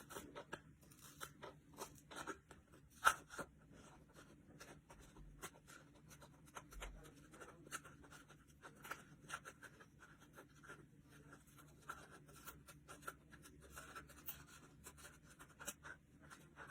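Small scissors snipping through a cardboard toilet paper roll, a long run of short, irregular snips as a circular hole is cut out.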